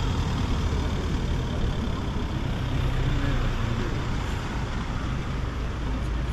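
Road traffic on a city street: a steady low rumble of vehicle engines and tyres passing by.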